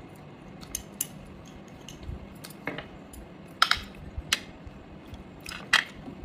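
Chopsticks and cutlery clinking against china plates and a small sauce bowl while food is picked up: about seven scattered sharp clicks, the loudest about three and a half and six seconds in.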